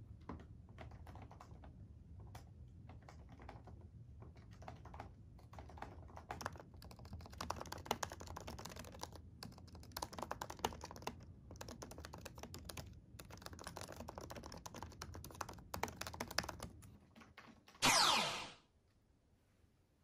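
Typing on a MacBook laptop keyboard: rapid key clicks in runs with short pauses. Near the end the typing stops and a loud, brief sweep falls from high to low pitch.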